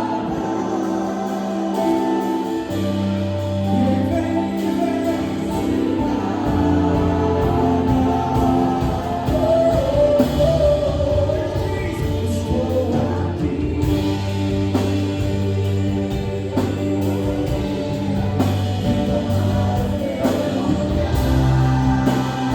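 Christian worship music: singing voices over held chords and a steady bass line.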